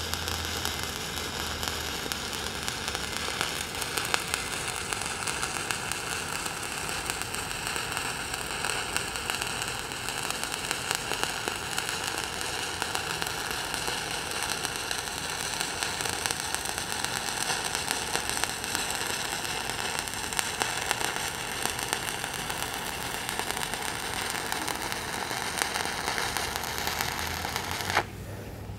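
Stick-welding (SMAW) arc crackling and sizzling steadily as a coated electrode runs a weave cap bead vertically up a steel plate. The sound dips sharply for about a second near the end.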